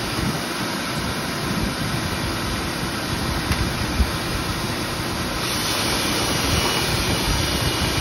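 Dryer vent cleaning vacuum running with a steady rush of air, as lint is pulled through the duct. About five and a half seconds in, a brighter hiss joins it, with a faint thin whine.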